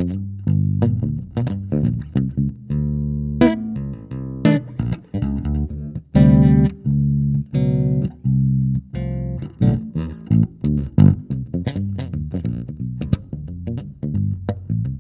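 Electric bass guitar played through Hartke HL bass cabinets: fast runs of short plucked notes, with a few longer held notes about three and six seconds in.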